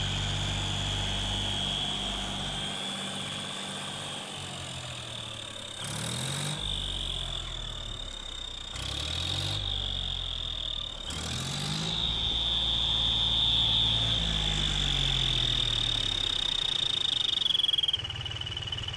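John Deere 5050D diesel tractor engine running with a cheap turbo whistle fitted in its exhaust silencer, giving a steady high whistle over the engine note. The engine is revved up and back down three times in the first half, and the whistle rises with it. The engine itself is not turbocharged.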